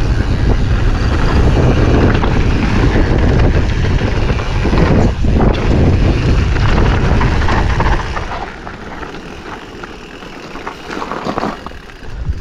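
Wind rushing over the action camera's microphone, together with a Commencal Supreme DH29 downhill mountain bike rolling and rattling over a dirt trail at speed. About eight seconds in the noise drops sharply as the bike slows, leaving quieter rolling with a few clatters near the end.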